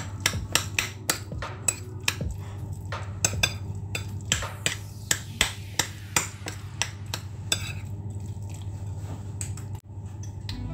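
Metal spoon clinking and scraping against a ceramic bowl as potato salad is stirred, sharp clicks coming two or three times a second and thinning out after about seven seconds.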